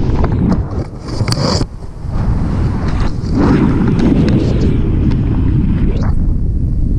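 Rushing airflow buffeting an action camera's microphone during a paraglider flight, a loud low rumble. It dips briefly with a few clicks and rustles about one to two seconds in.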